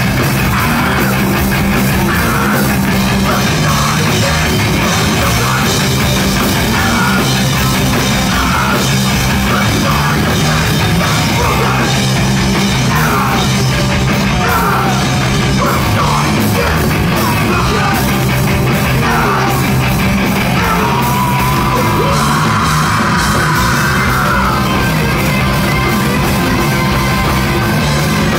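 Live punk band playing loud: electric guitar, bass and drums with a shouted lead vocal.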